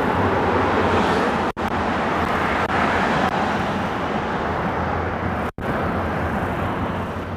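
Steady rushing noise of car traffic inside a road tunnel, with a low hum under it. The sound cuts out abruptly for a split second twice.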